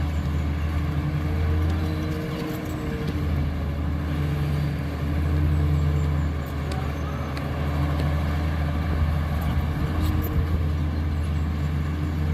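Caterpillar bulldozer's diesel engine running steadily while the machine works the ground, its low hum swelling and easing a little, with a few faint clicks.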